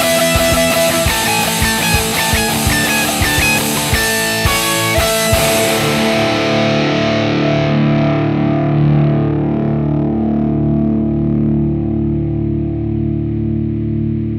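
Closing bars of a pop-punk song: drums and distorted electric guitar play until about five seconds in. Then a final chord is held and rings out, slowly fading.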